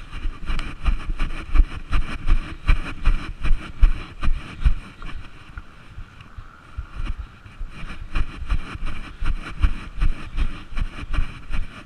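Wind buffeting the microphone in irregular low gusts, with scattered rustles and knocks.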